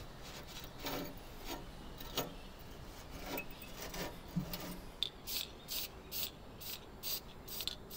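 Rubbing strokes by hand on a work surface: a few scattered scrapes at first, then a steady back-and-forth rhythm of about three strokes a second over the last few seconds.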